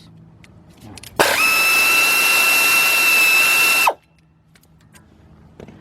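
Craftsman 16882 half-inch air impact wrench run in one burst of about two and a half seconds, a steady high whine over air hiss, starting about a second in and stopping suddenly.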